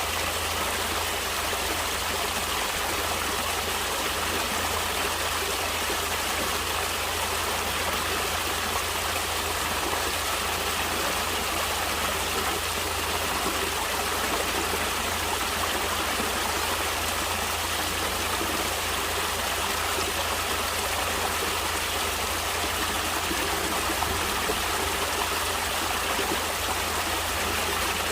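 Stream water flowing steadily, an even rush of moving water that does not change.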